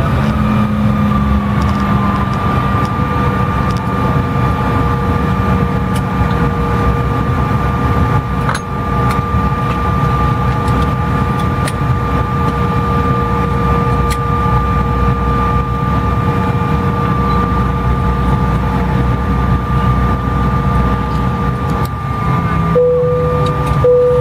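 Cabin noise of a Bombardier CRJ-900 taxiing: a steady low rumble with the whine of its rear-mounted GE CF34 turbofans at idle, a higher and a lower tone held steady. Near the end, the lower tone and the rumble shift in pitch.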